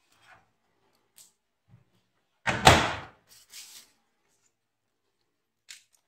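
The door of an LG front-load washing machine swung shut with one loud thud about two and a half seconds in, amid a few small handling clicks and some softer rustling after it.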